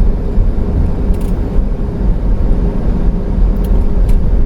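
Road and engine noise inside a moving 2008 Pleasure-Way Ascent camper van: a steady low rumble with a faint even hum.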